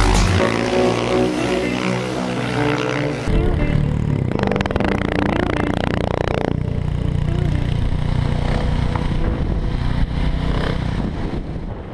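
Motor vehicle engine running steadily, with a louder rushing stretch from about four to six and a half seconds in, fading out near the end.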